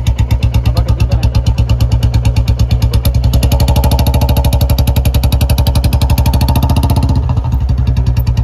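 Royal Enfield Bullet 350's 349 cc single-cylinder J-series engine running under way through a short-bottle 'Mini Punjab' aftermarket silencer: a loud, rapid train of exhaust thumps that picks up pace about three seconds in.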